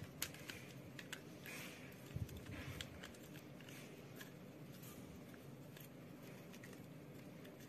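Faint handling of a plastic handheld tripod grip as its mount parts are turned and fitted together: a few sharp plastic clicks in the first three seconds, then lighter scattered ticks and rubbing.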